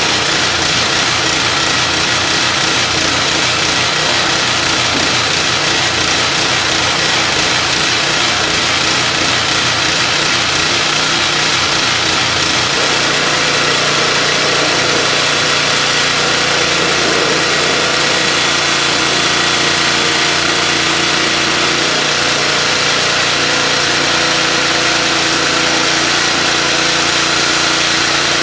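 Pressure washer running, its water jet spraying onto a large steel gear: a steady loud hiss over the hum of the washer's pump motor. About halfway through, a steadier, more pitched motor tone comes in.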